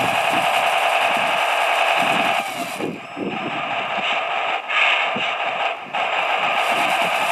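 RC scale model Tatra 130 truck's motor and gearbox whining as the truck drives through loose sand, with irregular crackling underneath. The whine cuts back briefly a few times near the middle as the throttle eases.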